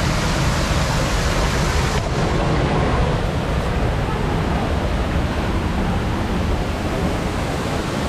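Waterfall rushing: a loud, steady, dense wash of falling water, strong enough to drown a voice, turning slightly duller after about two seconds.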